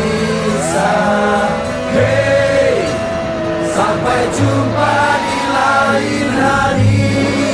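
Background music: a singing voice carrying a melody over held bass notes.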